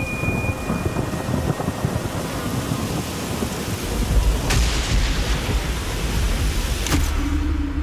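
Thunderstorm: a steady hiss of rain, with deep thunder rumbling in from about halfway and two sharp cracks of thunder a couple of seconds apart.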